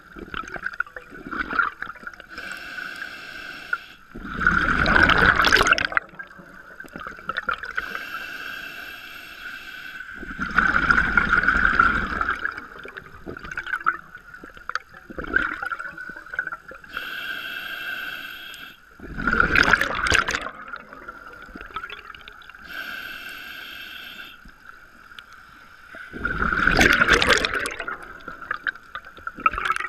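Scuba diver breathing through a regulator underwater. There are four breaths about seven seconds apart, each a hissing inhale followed by a loud rush of exhaled bubbles. A steady thin whine runs underneath.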